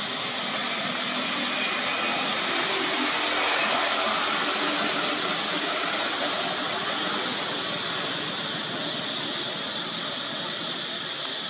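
A steady, even hiss with a constant high-pitched band running through it.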